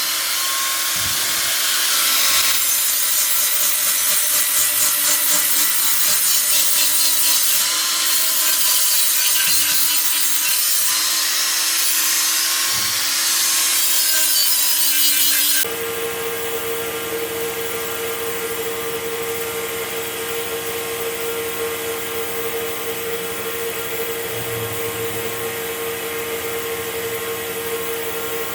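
Electric power tool abrading a part: a harsh rasping hiss over a motor whine that wavers slightly in pitch with the load. A little over halfway through it cuts off suddenly to a quieter, steady motor hum at one fixed pitch.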